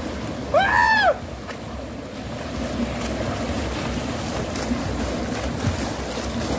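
Swimmers splashing in a river pool with a small waterfall rushing steadily, and a loud shout that rises and falls about half a second in.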